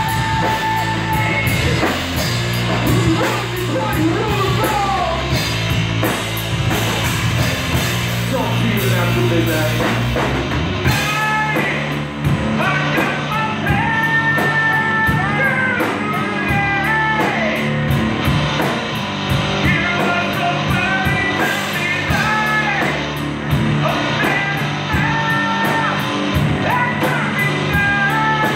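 A live rock band playing with electric guitars, bass and drum kit. A higher lead melody with bending notes comes in about a third of the way through.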